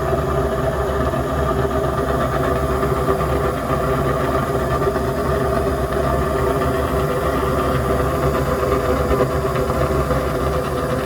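Gibson gas furnace running: a steady mechanical hum with a low rumble and several steady tones, unchanging throughout.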